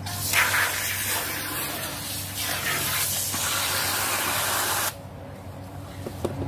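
Garden hose spray nozzle spraying water into a plastic tub of concrete mix, a steady hiss that cuts off suddenly about five seconds in.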